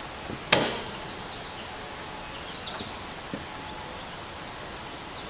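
A single sharp clunk with a brief ringing tail about half a second in: the rider mower's cutting deck dropping to its lowest position on the lift linkage. Faint bird chirps follow.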